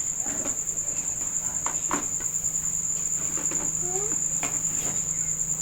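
A steady high-pitched insect trill pulsing rapidly, over a faint low hum, with a few soft knocks.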